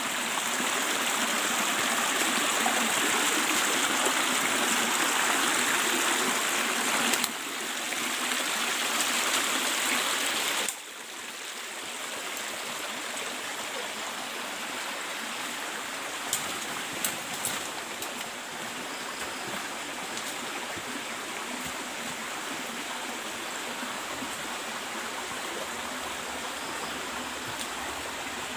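Small rocky forest stream running over stones: a steady rushing of water that drops suddenly to a quieter level about ten seconds in. A few light clicks come about halfway through.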